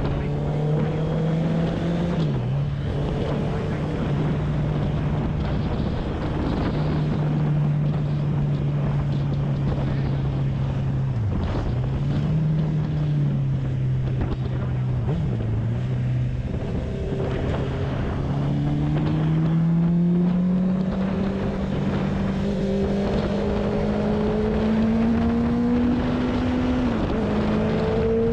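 Inline-four sport motorcycle engine running under way, with wind noise. The engine note dips briefly a few times and recovers, then rises steadily in pitch through the second half as the bike accelerates, with one short drop near the end.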